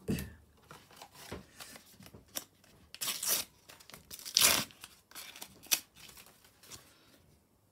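A Panini sticker packet's wrapper being torn open and crinkled by hand, with two louder rips about three seconds and four and a half seconds in, among small handling clicks.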